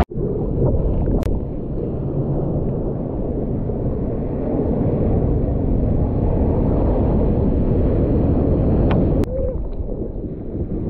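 Ocean water and surf rushing around an action camera in its waterproof housing: a dense, muffled rumble, with a couple of sharp clicks.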